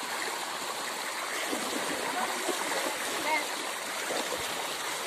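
Muddy floodwater rushing and churning across a path: a steady, even rush of water.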